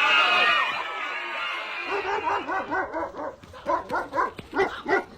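A high-pitched wail trailing off in the first second, then a dog barking in a quick run of short barks and yips, about three a second, growing louder toward the end.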